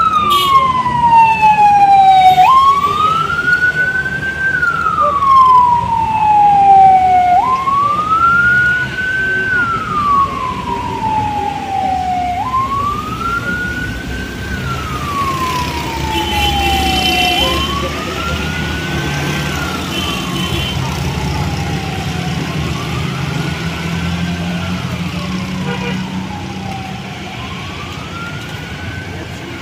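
Emergency vehicle siren in a slow wail. The pitch climbs, then slides down, about once every five seconds, and it grows fainter toward the end over a low rumble of traffic.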